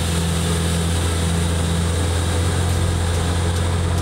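A machine running steadily: a low hum with a steady hiss over it.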